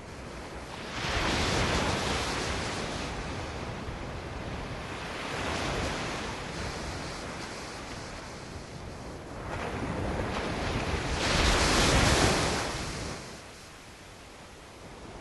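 Ocean surf: waves breaking and washing in as swells of noise, one about a second in, a smaller one midway, and the largest rising near the end and then falling away.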